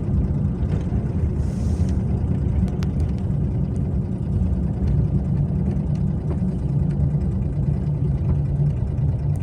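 Steady road and engine noise of a moving Daewoo Matiz, a low even rumble with a few faint clicks.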